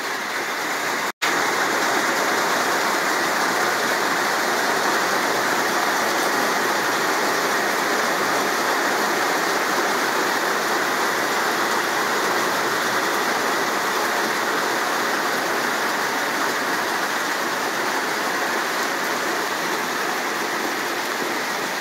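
Heavy downpour: a loud, steady hiss of pouring rain, briefly cut off for an instant about a second in.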